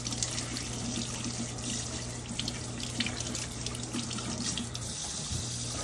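Kitchen faucet running steadily into a stainless steel sink, the stream splashing over raw chicken drumsticks held under it and rubbed clean by hand.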